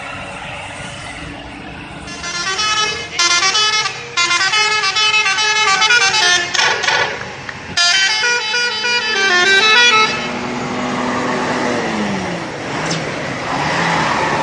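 Indonesian bus 'telolet' musical air horn playing a tune: several short phrases of stacked tones stepping up and down in pitch, starting about two seconds in and stopping at about ten seconds. Then a steady noisy stretch with a low tone that slides down in pitch.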